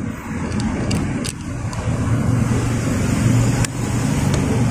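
Steady low engine-like rumble, with a few sharp metallic clicks as a screwdriver presses down a valve spring retainer to seat the valve locks on a Suzuki F6A cylinder head.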